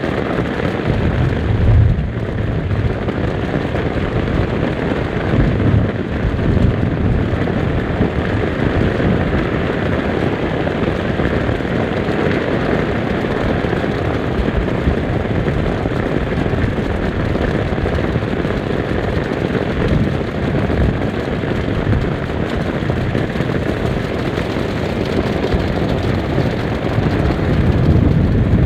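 Steady heavy rain, an even hiss, with low rumbling gusts buffeting the microphone from time to time.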